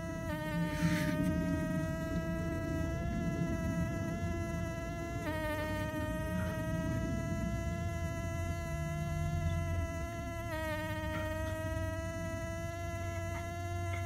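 Bumblebee buzzing steadily while coupled with another insect on the ground, a high-pitched drone with many overtones whose pitch dips briefly about five seconds in and again near ten seconds.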